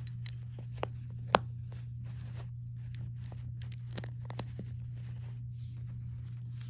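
Small plastic Lego pieces clicking and rattling as they are handled and pressed together, with a few sharp clicks, the loudest about a second and a half in, over a steady low hum.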